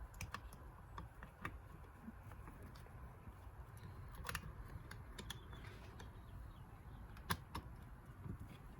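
Faint, scattered light clicks and taps of VW Beetle transmission gear shafts and shift forks being handled and fitted into the gearbox case, the loudest about seven seconds in.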